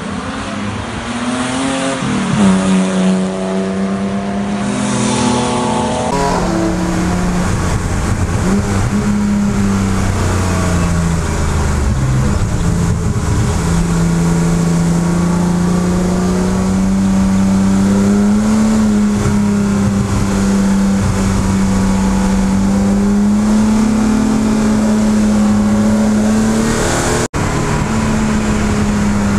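A car's engine heard from trackside, rising in pitch as it goes by. After a cut about six seconds in, the BMW E12 M535i's 3.5-litre straight-six is heard from inside the stripped cabin, its note rising and falling as the car accelerates and slows through the corners.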